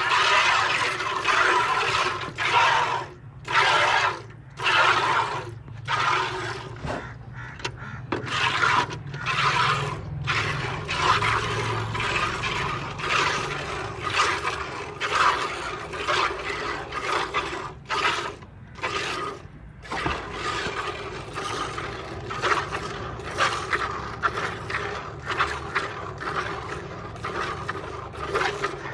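Cow being milked by hand: streams of milk squirting into a pail in a steady rhythm of short hissing spurts.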